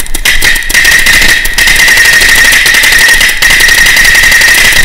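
AGD Automag paintball marker fired rapidly close to the microphone, a long string of sharp pops that thickens into a near-continuous volley after about a second. A steady high-pitched whine runs beneath the shots.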